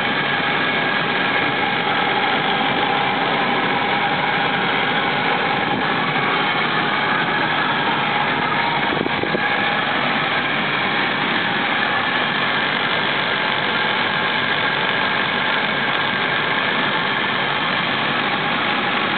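Ford 5.4-liter Triton V8 of a 2000 F-250 Super Duty idling steadily, heard up close under the open hood. It runs evenly, in excellent running condition.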